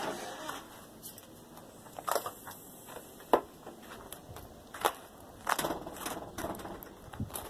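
Footsteps crunching on frozen snow and ice: a handful of irregular crunches, one every second or so, with a cluster of them after about five and a half seconds.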